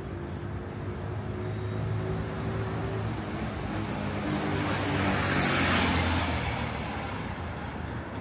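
A motor vehicle passing close by on a street: a low engine hum with tyre and road noise that swells to its loudest about five to six seconds in, then eases off.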